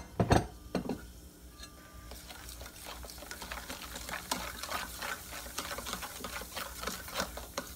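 Metal spoon stirring a watery mix in a stainless steel bowl, clinking and scraping against the steel in quick, irregular ticks that grow a little louder as it goes. A single sharp clunk right at the start.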